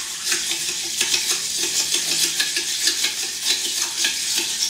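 Bar spoon stirring crushed ice and bourbon in a silver julep cup: a steady crunching, clinking rattle of ice against the metal, about three or four strokes a second. The drink is being stirred down to chill it until the cup frosts.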